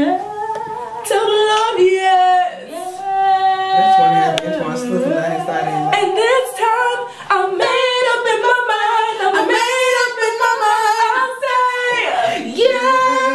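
A small group of young women singing together without accompaniment, holding and sliding long notes with vibrato.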